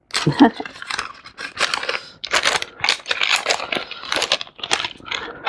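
Paper bag rustling and crinkling as it is handled and folded closed, in quick irregular bursts.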